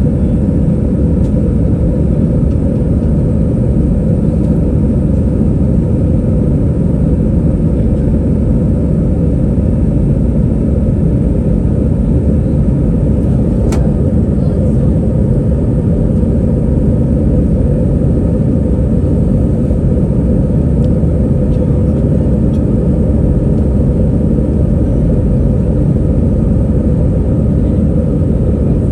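Steady low rumble of engine and airflow noise heard inside the cabin of an Airbus A321 airliner, with one short click about 14 seconds in.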